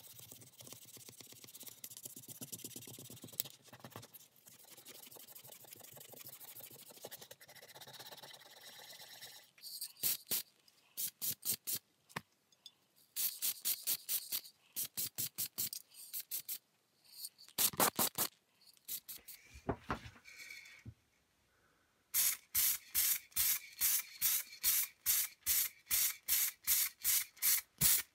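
Wet sanding with 800-grit paper on a paper hole puncher's base: a faint, steady rubbing of back-and-forth strokes. About ten seconds in it gives way to an aerosol can of black high-gloss spray paint hissing in many short bursts, which come quickly, about two a second, in the last several seconds.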